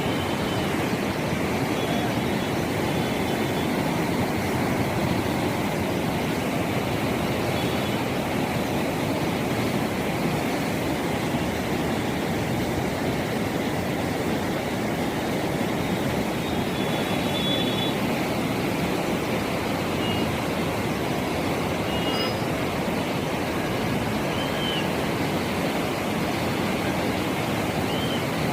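Godavari river in flood, fast water rushing in a steady, unbroken noise.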